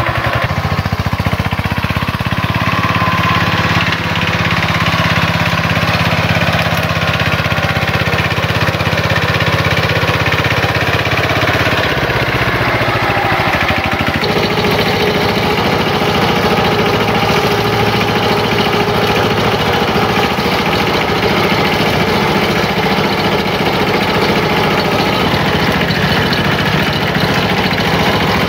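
Kubota K75 hand tractor's single-cylinder diesel engine running steadily while it pulls a loaded trailer. The engine's tone changes about halfway through.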